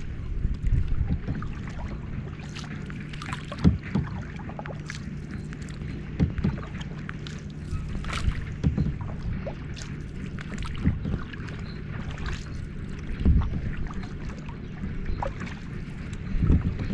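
Water splashing and slapping against the hull of a small boat under way, with irregular knocks every second or two over a steady low hum.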